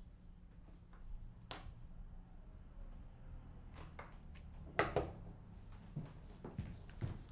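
Quiet room with a low steady hum and a few light knocks and taps. The sharpest, about five seconds in, is a metal flute being set down on a wooden surface.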